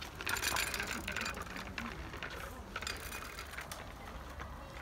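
Child's red Mongoose bike with training wheels rolling over asphalt, its chain and freewheel ticking and rattling in an irregular run of clicks.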